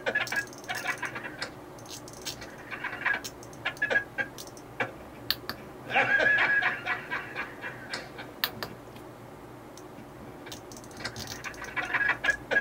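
Rotary encoder on a Rev O Mate circuit board turned by hand, clicking through its detents in several short runs of rapid clicks.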